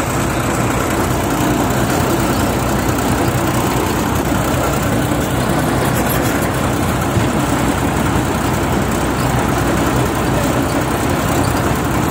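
Sonalika DI 35 tractor's three-cylinder diesel engine running steadily while driving along the road, heard from on board.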